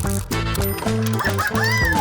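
Upbeat background music with a steady bass beat.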